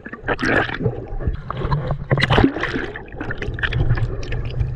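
Sea water sloshing and splashing close against the microphone, in irregular surges over a low rumble.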